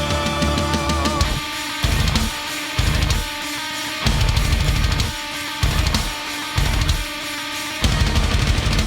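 Heavy rock music: a held sung note ends about a second in. Distorted guitar and drums then play a stop-start riff, heavy chords broken by short gaps, and the song fades out at the end.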